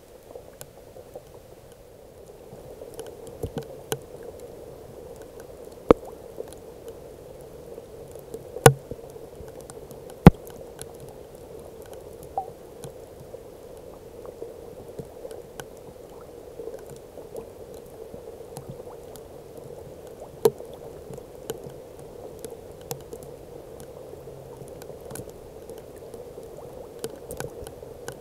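Rain falling on swamp water: a steady patter of drops, heavier from about two seconds in, with scattered ticks and a few loud sharp taps, the loudest about six, nine, ten and twenty seconds in.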